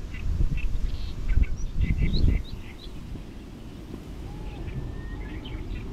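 Small birds chirping, many short calls scattered through, over wind rumbling on the microphone that eases about halfway through.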